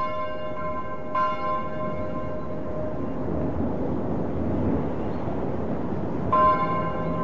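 A church bell tolling: a stroke right at the start, another about a second in and a third near the end, each ringing on and slowly fading. A steady noisy background runs underneath.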